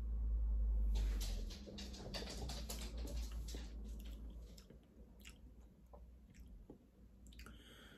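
A person taking a mouthful of porter from a pint glass and swallowing, then wet lip-smacking and tongue clicks while tasting it, coming thick at first and thinning out over the next few seconds.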